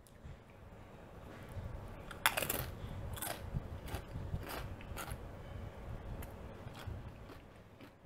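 Close-miked crunching of a Doritos tortilla chip being bitten and chewed: a loud crunchy bite about two seconds in, followed by a run of smaller crunches over the low sound of chewing.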